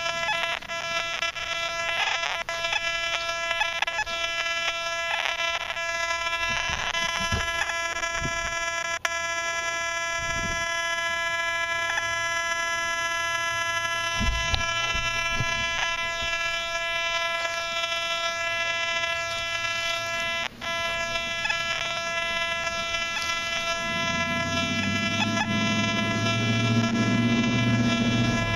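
Metal detector with a 6x10 double-D search coil sweeping over ground: short electronic beeps and chirps, mostly in the first third, over a steady buzzing tone, with iron readings on the display. A low rumble comes in near the end.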